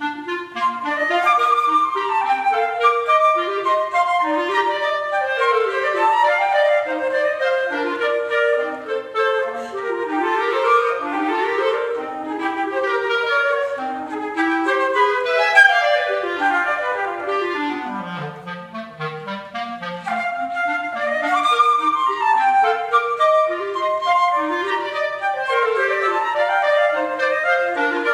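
Flute and B-flat clarinet duo playing quick, busy running lines in interplay, starting together right after a short pause. About two-thirds of the way through, the clarinet drops into its low register and the music is briefly quieter before the fast runs pick up again.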